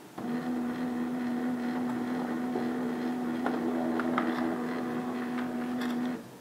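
Laser printer printing a demo page: its motor runs with a steady pitched whine, with a few clicks as the sheet feeds through, then stops abruptly once the page is out.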